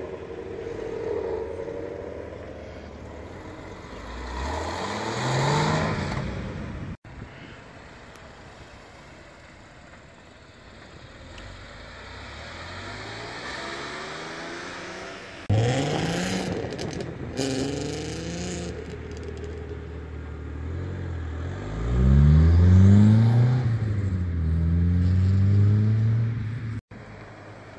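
Sports cars accelerating away one after another, their engines revving up in repeated rising pulls through the gears. A blue Chevrolet Camaro goes first, then a white Porsche 911. The loudest, lowest pulls come about two-thirds of the way through.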